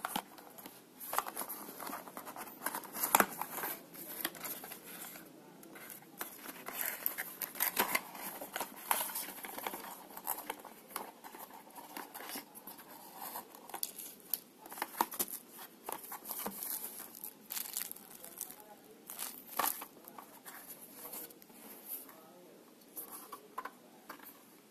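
Packaging being opened and handled by hand: irregular crinkling, rustling and tearing with sharp clicks.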